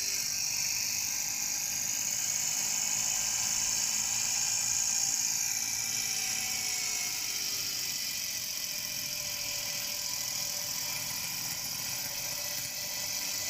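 Daihatsu Copen's KF-VET 658 cc turbocharged three-cylinder engine running, heard as a steady high-pitched whir and hiss that swells a few seconds in and then eases. The owner is tracing a high-pitched tinkling in it that he takes for engine knock.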